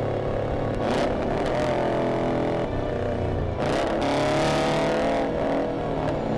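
Car engine running under way, its pitch changing several times, with a rising glide about four seconds in.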